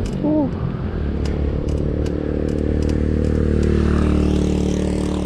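Motorcycle passing by, its engine growing louder to a peak about four seconds in and dropping slightly in pitch as it goes past.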